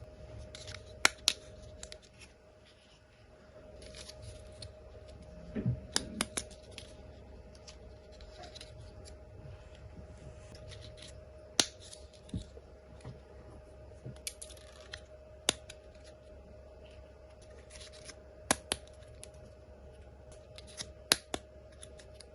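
Small plastic toy cars and their packaging being handled: scattered sharp clicks and taps, a dozen or so spread irregularly, over a faint steady hum.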